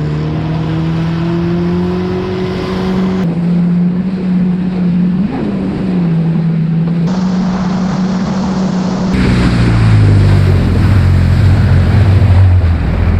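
Yamaha WaveRunner jet ski engine running at a steady cruising pitch that rises slightly early on, with water and wind rushing past. The sound shifts abruptly a few times, and from about nine seconds in the engine note drops lower and the low rumble and rushing noise grow louder.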